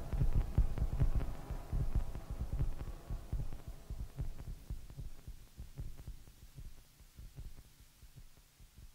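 Low, rapid throbbing pulses, like a heartbeat-style rhythm, fading out steadily to almost nothing by the end.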